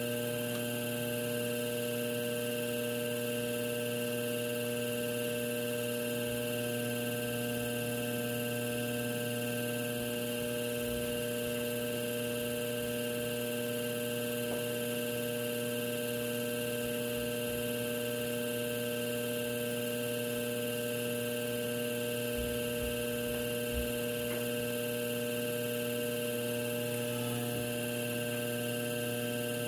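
Electric potter's wheel motor running at steady speed with a constant, even hum.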